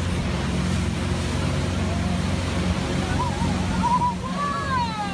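Tow boat's engine running steadily under a rush of wind and water. From about three seconds in, people shout and scream, ending in a long falling scream as the riders are thrown off the towed tube.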